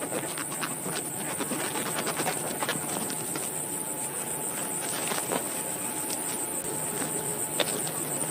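Insects chirring steadily at a high pitch, with scattered clicks and knocks and a low rustling noise.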